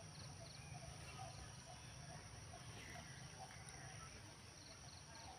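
Quiet outdoor ambience: a steady high-pitched insect drone under faint short chirps, with little triple ticks near the end and a low rumble of wind.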